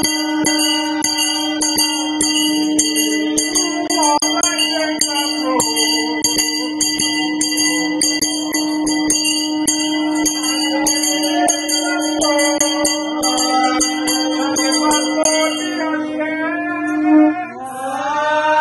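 Conch shell trumpet blown in one long, steady note while a brass hand bell is rung over and over above it. The bell stops about fifteen seconds in. The conch note swells and ends a little later, and voices start chanting near the end.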